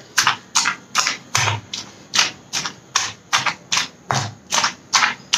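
Round stone pestle pounding in a heavy stone mortar, a steady rhythm of about four strikes a second, crushing radish leaves, garlic, coriander and soaked tamarind into a coarse chutney.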